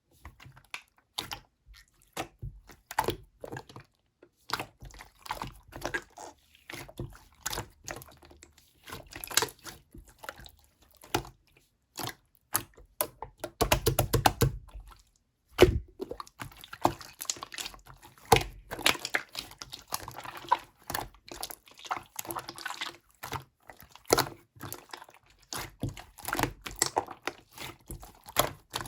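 Slime being squished and pressed by hand: a stream of irregular wet clicks and pops, with a fast run of clicks about fourteen seconds in.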